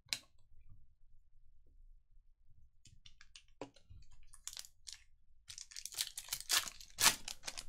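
A single sharp click at the start, then a foil trading-card pack being crinkled and torn open, a dense crackling that grows loudest over the last two seconds.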